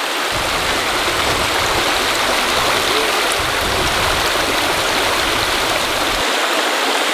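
Shallow rocky stream rushing over stones, a steady, loud water noise, with a low rumble under it that stops about six seconds in.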